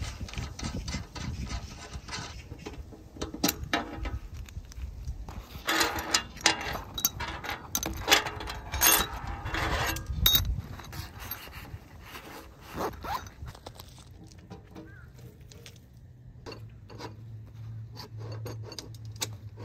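Handling noises: irregular scraping, rustling and clicks, busiest in the first half, with runs of zip-like noise. A low steady hum comes in during the second half.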